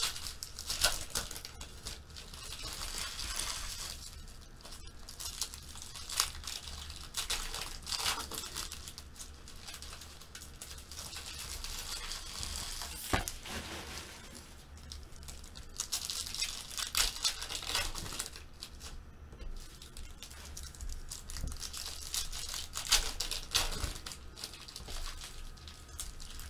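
Foil trading-card pack wrappers being torn open and crinkled by hand, coming in bouts with sharp crackles.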